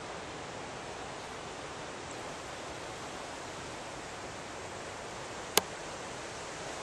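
Steady, even rushing hiss of outdoor ambience over a meadow and trees, with one sharp click about five and a half seconds in.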